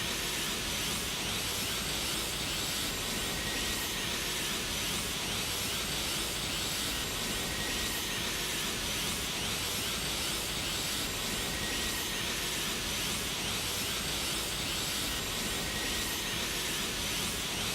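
Super Saiyan Blue aura sound effect: a steady hissing, rushing energy noise. A faint tone sweeps down about every four seconds, as the loop repeats.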